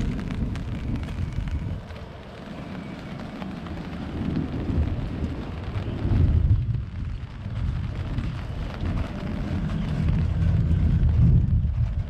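Rain falling on wet pavement, with a deep low rumble that swells and fades several times.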